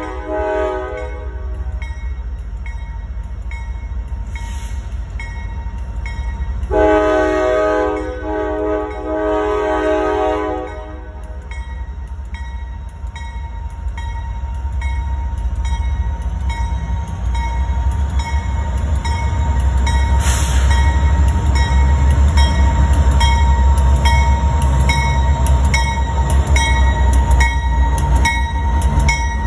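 Freight train's lead diesel locomotive sounding its horn: a chord that ends about a second in, then a longer blast of about four seconds around seven seconds in, with a grade-crossing bell ringing steadily. From about halfway through, the deep rumble of the passing locomotives' diesel engines grows loud as the Norfolk Southern lead unit and Union Pacific trailing units go by.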